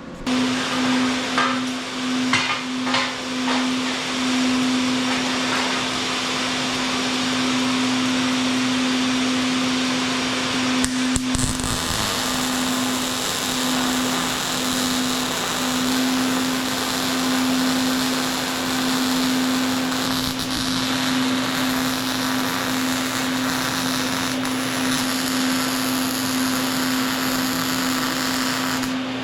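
Angle grinder running steadily, a constant whine under a hiss of grinding on steel, with a brief break about eleven seconds in.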